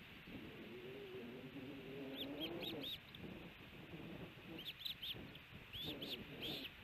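Osprey chirping: short, high, arched notes in quick groups of two or three, beginning about two seconds in and repeating several times toward the end.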